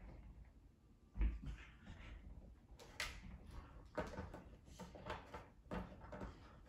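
Plastic dog treat-puzzle toy being nosed and pushed by a puppy: irregular clacks and knocks of its sliding plastic pieces and base, with a low thump about a second in.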